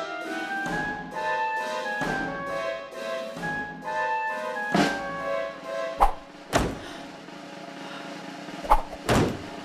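Orchestral film score with held notes that step from one pitch to the next. From about halfway the music thins to a sustained tone, cut through by five sharp thuds: one, then a close pair, then another close pair.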